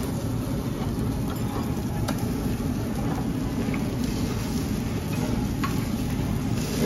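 Steady low restaurant background noise, a hum like ventilation, with a few light clicks of tableware on the table.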